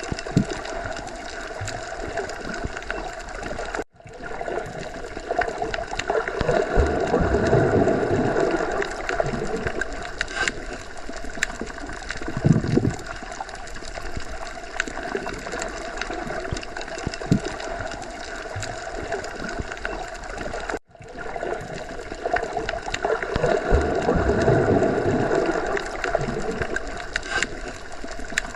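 Underwater sea ambience: a continuous muffled watery wash with gurgles and scattered small clicks. It swells and ebbs slowly, with two brief dropouts to near silence, about four seconds in and again near twenty-one seconds, after which the same stretch repeats as a loop.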